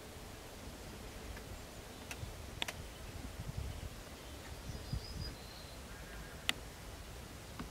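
Quiet open-air background with a low rumble, broken by three sharp clicks: two close together a little after two seconds in, and the loudest about six and a half seconds in. A few faint, short high calls sound around five seconds in.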